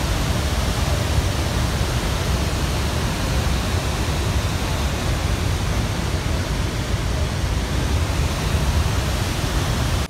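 Steady, loud rushing of a large waterfall in heavy flow, Athirappilly Falls, a dense unbroken noise with its weight in the low end.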